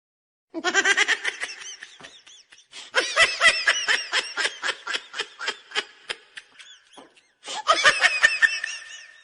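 A person laughing in three bouts of rapid, evenly pulsed ha-ha-ha, with short gaps between them.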